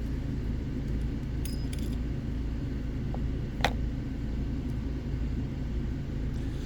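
A few light metallic clicks and clinks from a lock being handled, the sharpest about three and a half seconds in, over a steady low rumble.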